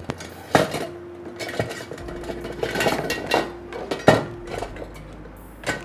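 Metal kitchen utensils clattering: several sharp knocks and clinks as spatulas and spoons are handled in a utensil holder, the loudest about four seconds in.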